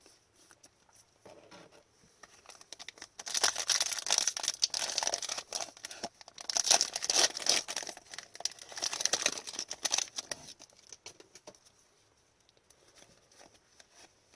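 Plastic wrapper of a hockey trading card pack being torn open and crinkled in the hands, a loud crackling stretch of about seven seconds between quieter handling of the cards.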